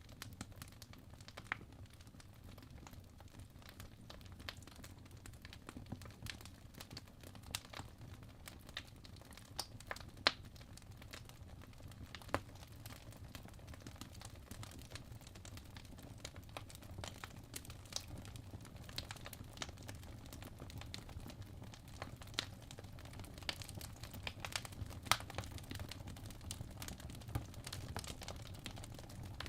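Crackling fire: irregular sharp pops and snaps over a low, steady rumble.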